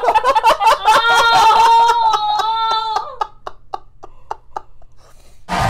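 People laughing hard: a high-pitched shrieking laugh for about three seconds, then breathy giggles that trail off. A loud burst of crowd noise cuts in near the end.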